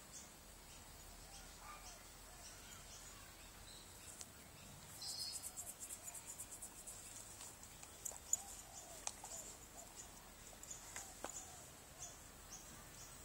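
Quiet backyard ambience, with a rapid run of faint high chirps about five seconds in and a few soft clicks later on.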